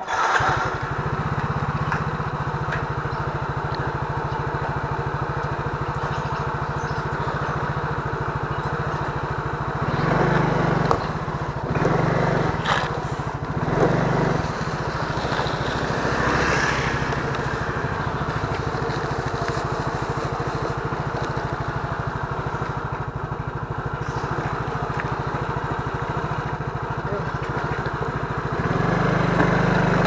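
Small motor scooter engine running steadily while being ridden, with rushing air and road noise. It swells louder a few times, around the middle and again near the end.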